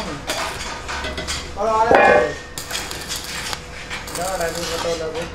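Stick arc welding on steel: the electrode crackles and sputters irregularly as it welds a burner ring. A short pitched, voice-like call rises over it about two seconds in.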